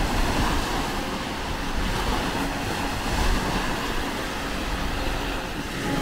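Surf washing onto the beach: a steady hiss of waves, swelling slightly in the first second or two, with low wind rumble on the microphone.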